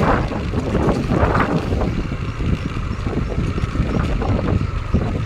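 Wind rumbling on the microphone over a Yamaha Aerox scooter running along a dirt track, with a couple of louder gusts in the first two seconds.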